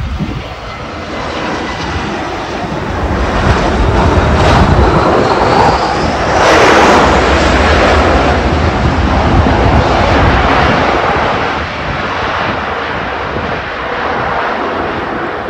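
Airbus A320-214 jet engines (CFM56) on landing rollout. A few seconds after touchdown the engine noise swells with a rising whine, as with reverse thrust. It is loudest about halfway through, then eases off as the jet slows down the runway.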